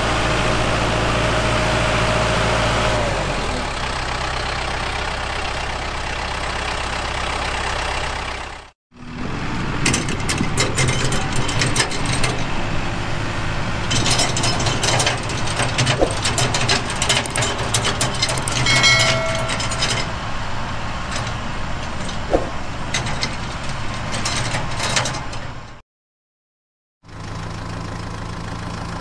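A steady engine idling, with clinks and clatter of clay roof tiles handled on plastic toy dump trucks. The sound drops out completely twice for a moment.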